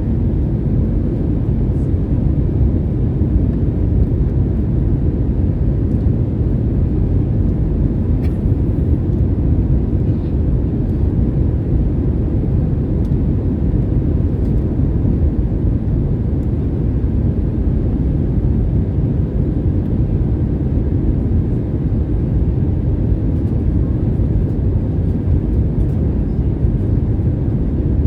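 Cabin noise inside an Airbus A320neo on approach: a steady low rumble of airflow and its CFM LEAP-1A engines, with a faint steady hum on top.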